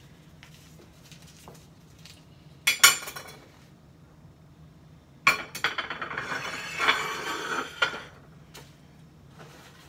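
Kitchenware being handled: a short burst of sharp clinks about three seconds in, then a couple of seconds of dishes and glass clinking and rattling. A faint low steady hum lies underneath.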